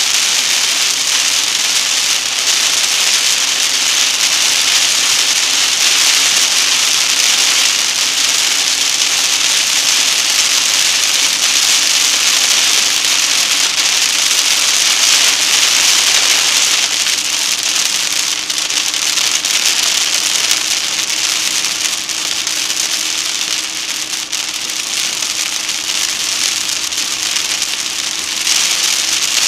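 Moderate rain on a moving car: a steady hiss of rain and wet tyre spray on the road, with a faint steady hum underneath that rises slightly about halfway through. The hiss eases for a while and comes back strongly near the end.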